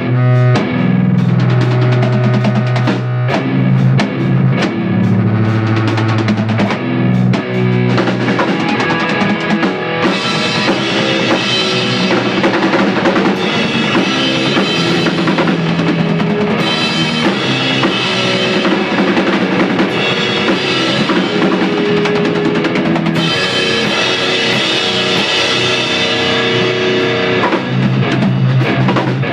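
An electric guitar and a PDP drum kit playing rock together, loud and live in a small room. The arrangement changes a few times, with a brighter, busier stretch starting about a third of the way in.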